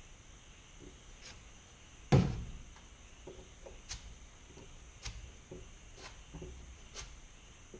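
A single loud knock about two seconds in, then light handling clicks and faint ticks about once a second, while body filler is being spread by hand over the van's metal roof.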